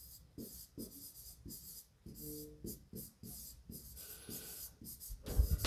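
Pen writing in short scratching strokes, about two a second, as an answer is written out.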